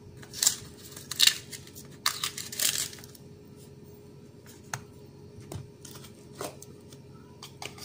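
A metal spoon scooping granulated sugar from a small plastic tub and tipping it into a plastic bowl: a few short, gritty scraping and rustling bursts in the first three seconds, then a few light clicks.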